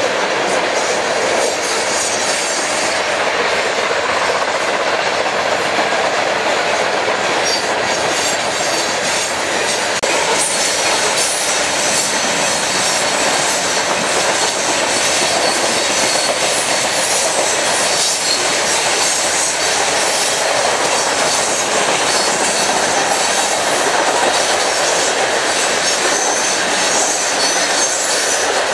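BNSF freight train of open-top hopper cars rolling past at steady speed: a continuous, fairly loud noise of steel wheels on the rails, with occasional clicks as wheels cross rail joints.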